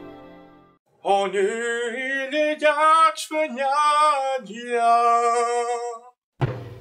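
A man singing alone into a microphone with no accompaniment: a few sustained sung phrases with a wavering pitch. The tail of a flute piece fades out at the start, and guitar music begins near the end.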